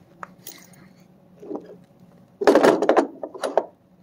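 Hand tools and brass fittings being handled and set down on a table while items come out of a soft tool bag. A few light clicks come first, then a burst of clattering and rustling about halfway through, with a shorter burst after it.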